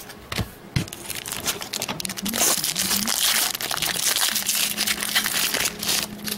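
Foil trading-card pack wrapper being torn open and crinkled: a few sharp clicks, then from about two and a half seconds in a dense crackling rustle that fades near the end.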